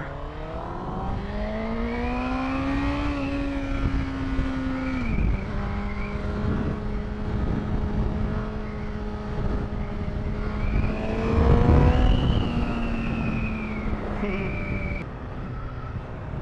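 Honda CBR1000RR's inline-four engine pulling up through the revs, dropping sharply in pitch at an upshift about five seconds in, then holding a steady cruise. The engine rises again past the tenth second with wind rushing over the microphone, then eases off near the end.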